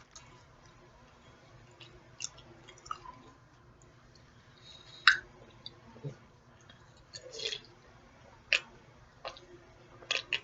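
A person chewing food close to the microphone, with wet mouth clicks and smacks at irregular intervals; the loudest smack comes about five seconds in.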